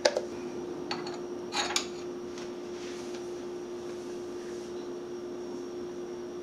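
A few light clicks and knocks in the first two seconds as a salt canister and plastic measuring spoon are handled over a kitchen counter. A steady low hum runs underneath.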